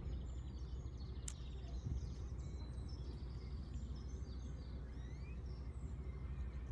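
Many small birds chirping in short, high notes over a steady low rumble of outdoor noise, with one sharp click about a second in.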